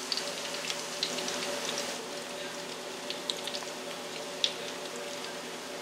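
Salmon patties shallow-frying in oil in a cast iron skillet, browning on their second side: a steady sizzle with scattered crackling pops, the sharpest a little after three seconds and about four and a half seconds in.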